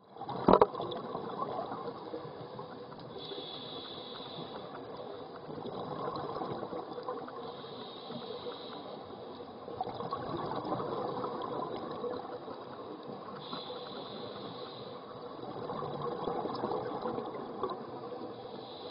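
Scuba diver's regulator breathing underwater: a short hissing inhale followed by a longer, louder rush of exhaled bubbles, repeating about every five seconds. A single sharp knock sounds about half a second in.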